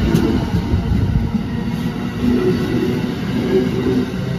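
Amtrak train of stainless-steel Amfleet coaches passing close by at speed: a loud, steady low rumble of wheels on the rails.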